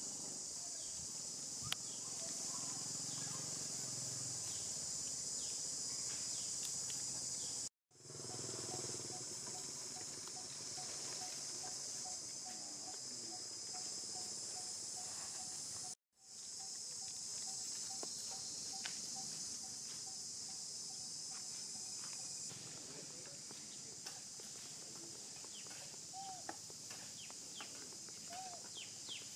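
Steady high-pitched drone of an outdoor insect chorus, which cuts out briefly twice and resumes. A rapid row of short piping notes sounds in the middle, and a few short rising chirps come near the end.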